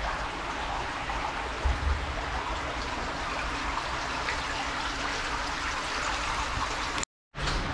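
Fast-flowing brook water rushing steadily through a concrete underground culvert, with a low rumble beneath it. The sound cuts out completely for a moment near the end.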